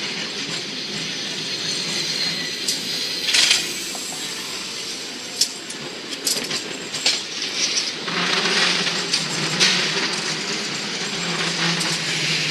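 San Francisco cable car running along its track: a steady rumble with sharp metallic clanks and rattles, busier and louder from about eight seconds in.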